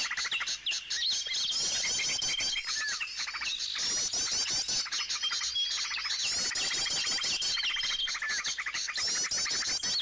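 Many small birds calling and chirping together, drawn in by bird luring. A long, steady high whistle comes back every few seconds among quick hooked chirp phrases.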